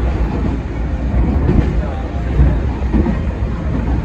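Sangi Railway 801-series (ex-Seibu 701-series) electric train running at speed, heard from just behind the driver's cab as a steady low rumble of wheels, motors and rails.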